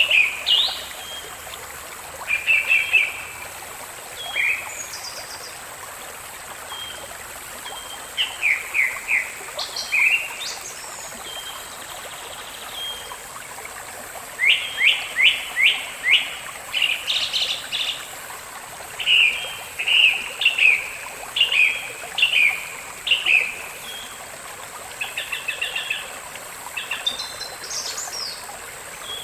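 Small songbirds chirping and singing in short, rapid runs of notes, over a faint steady high hiss.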